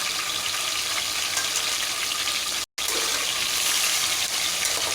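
Chicken pieces sizzling steadily in hot oil and ghee in a pot over a high gas flame, searing until the meat changes colour. The sound cuts out for an instant a little past halfway.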